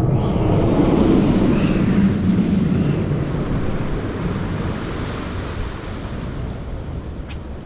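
Sea surf washing in, a rushing noise that swells suddenly at the start and slowly dies away over several seconds, with wind buffeting the microphone.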